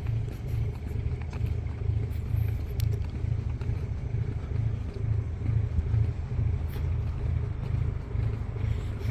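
Low, steady engine rumble of a passing river boat, with a faint steady hum above it.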